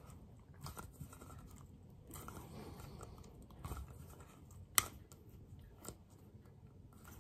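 Faint handling sounds of a rubber diaphragm being worked onto a motorcycle carburettor piston: soft rubbing and rustling of rubber on the piston, with a few small clicks, the sharpest about five seconds in.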